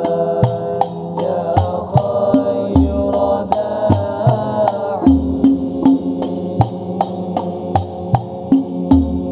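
Al-Banjari hadrah ensemble: several young male voices chanting sholawat together over a steady beat of terbang frame drums, with deep drum thumps under sharp slaps at about two to three beats a second.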